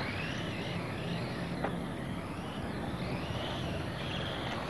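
Radio-controlled racing cars' motors whining, the high pitch rising and falling over and over as the cars speed up and slow down around the course.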